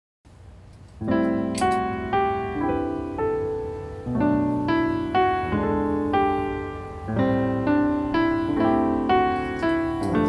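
Background piano music, a gentle melody of repeated notes that starts about a second in after a brief silence.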